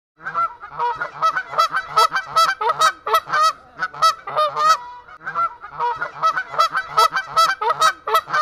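A flock of birds calling: many short, pitched calls several a second, overlapping one another, starting suddenly out of silence.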